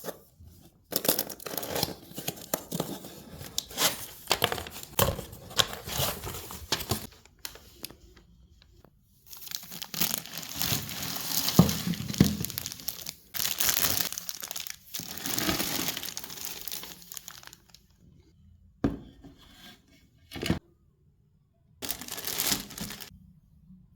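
Packaging of a cookware set being unwrapped by hand: tearing and crinkling of the wrapping, in bursts with short pauses, and a couple of sharp knocks near the end.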